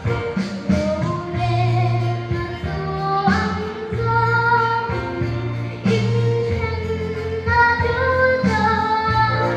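A young girl singing a song into a handheld microphone, in long held notes that step up and down from phrase to phrase, over an instrumental accompaniment with steady low bass notes.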